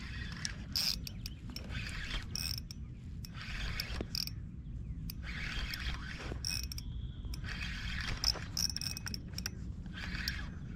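Fishing reel being cranked: repeated spells of clicking, whirring winding about every second, over a steady low rumble.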